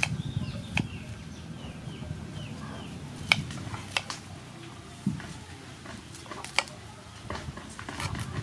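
Knife cutting a cauliflower into florets on a wooden chopping board: irregular sharp cracks and taps as the blade snaps through the stalks and knocks the board, about eight in all. The loudest come a little over three seconds in and again past six seconds.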